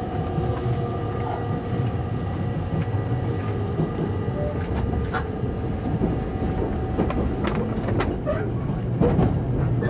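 Inside the cabin of a JR Kyushu 883 series electric express train as it pulls away from a station. A steady low rumble of the wheels on the rails runs under several steady whining tones that fade out about two thirds of the way through. Scattered clacks over rail joints and points come from the middle onward.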